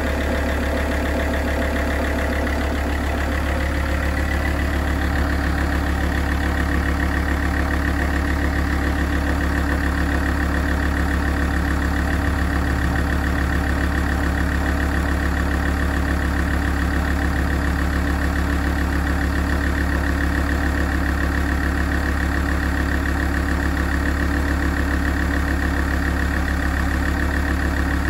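Alfa Romeo 166 2.4 JTDm five-cylinder common-rail diesel idling steadily while warming up, with a constant low hum.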